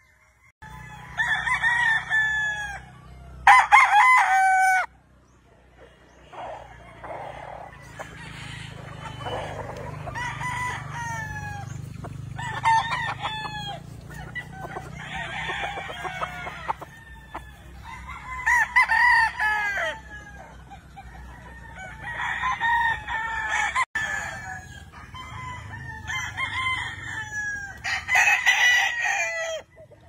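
Gamecocks crowing again and again, one call after another through the whole stretch, some overlapping.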